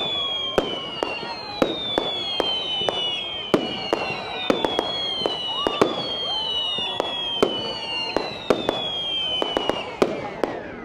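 Fireworks display going off: a fast run of sharp bangs, several a second at times, with a high whistle that falls in pitch and repeats about every second and a half, stopping just before the end.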